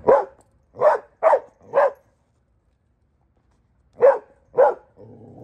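Adolescent Belgian Malinois barking: four sharp barks in quick succession, a pause of about two seconds, then two more.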